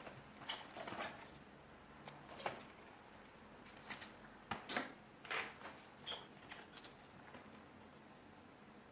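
Irregular handling noises: short rustles and scrapes of packaging, with a few sharp clicks, as a wireless keyboard is unpacked.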